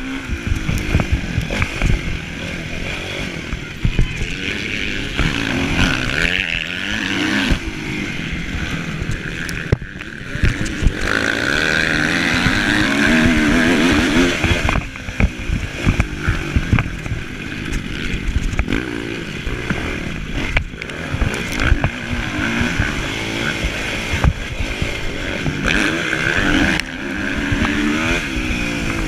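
Kawasaki motocross bike's engine heard from its own handlebars, revving up and down with the throttle as it races over the dirt track, with repeated knocks from the bumps. Near the middle it holds one longer, steady pull at high revs.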